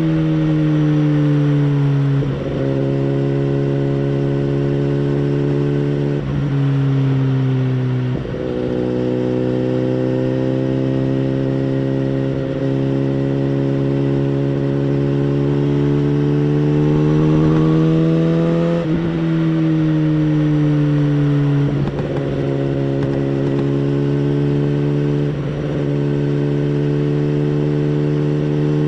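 A 2011 BMW S1000RR's inline-four engine through a Bodis aftermarket exhaust, heard onboard, running at moderate revs. The pitch steps abruptly about six times and rises slowly through a long stretch in the middle.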